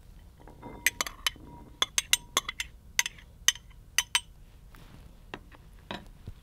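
A metal spoon clinks against a ceramic bowl and a glass bowl as drained black beans are scraped from one into the other. A quick run of sharp clinks comes in the first four seconds, then two more near the end.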